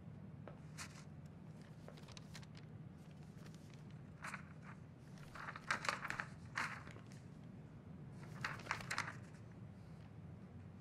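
Faint rustling and knocking from a person moving about a room, in three short clusters about four, six and nine seconds in, over a low steady hum.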